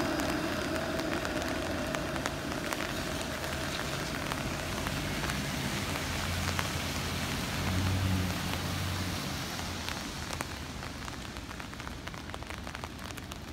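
Heavy rain falling on wet street pavement: a dense, steady hiss full of individual drop ticks. A low hum rises and fades around the middle, and the rain sound softens toward the end.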